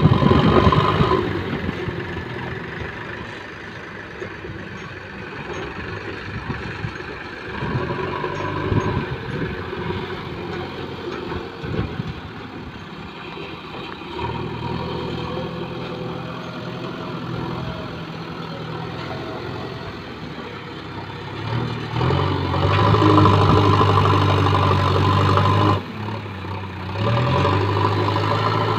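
JCB backhoe loader's diesel engine running while it works its front loader bucket: loud at first, settling to a steady lower run, then revving up harder under load about three-quarters of the way through.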